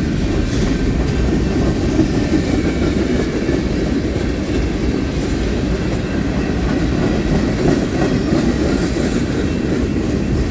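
Freight train's covered hoppers and tank cars rolling past close by at steady speed, a continuous loud noise of steel wheels running on the rails.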